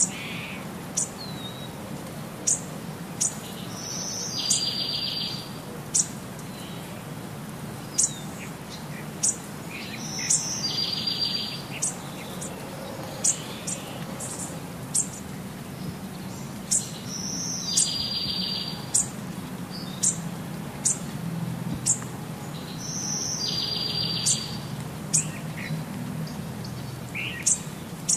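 Birds chirping: short, sharp high chirps about once a second, with a buzzy trill about a second long every six or seven seconds, over a steady low hum.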